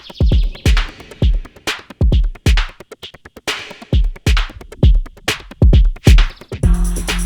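Electronic background music with a drum-machine beat of kick drums and sharp snare or clap hits. Near the end, held synth and bass notes come in.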